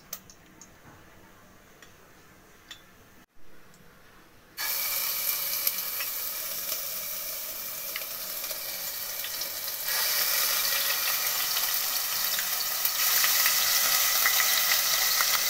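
Hot white (refined) cooking oil sizzling in a kadai. The sizzle starts suddenly about four and a half seconds in and grows louder in steps near the end as ginger-garlic paste goes into the oil.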